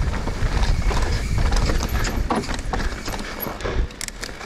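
Mountain bike ride noise on a fast dirt-trail descent: tyres running over the dirt, with the bike's chain and parts rattling in quick clicks and knocks over the bumps. A heavy low rumble of wind and trail sits on the camera microphone. The noise gets quieter near the end.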